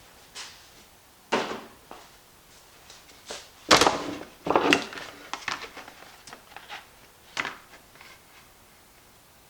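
Scattered knocks and clatters of parts and tools being handled and set down, the loudest a sharp knock about four seconds in.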